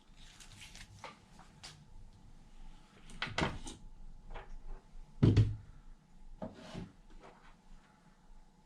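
Clicks and knocks of small RC truck parts being handled: a bearing and bearing carrier being picked up and fitted. Two louder knocks come about three and a half and five seconds in.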